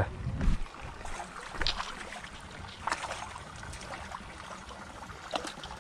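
A hooked fish splashing at the pond surface as it is played on the rod: a few short splashes with light trickling water, over a low rumble.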